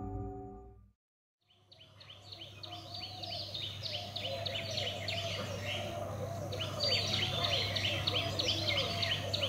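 The tail of a ringing singing-bowl tone fades out within the first second. After a brief silence, a bed of many birds chirping and calling fades in and carries on, the kind of birdsong ambience used as a radio-play sound effect.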